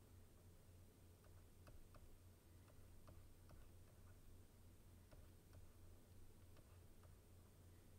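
Near silence with faint, irregular ticks, about one or two a second: a stylus nib tapping down on a drawing tablet during sketching, over a low steady hum.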